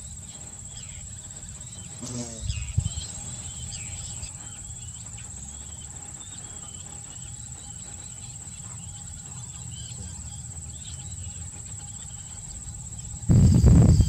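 Steady high-pitched insect buzz from a summer marsh, with faint scattered bird chirps over a low rumble. Near the end a much louder low rumble sets in suddenly.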